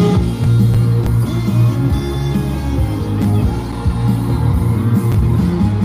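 Instrumental intro of a trot song played loud over a live sound system, with a heavy repeating bass line, before the vocal comes in.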